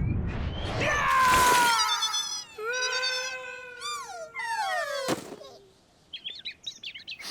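Cartoon sound effects: a run of squeaky, gliding whines and squeals that rise and fall in pitch, a sharp click about five seconds in, then faint high chirps.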